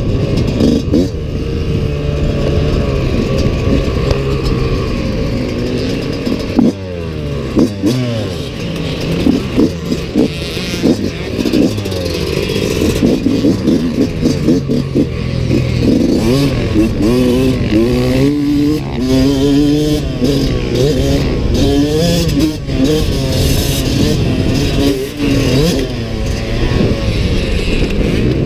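2022 Yamaha YZ125X's 125 cc two-stroke single-cylinder engine being ridden hard. Its pitch climbs again and again and drops sharply at gear changes and when the throttle is rolled off.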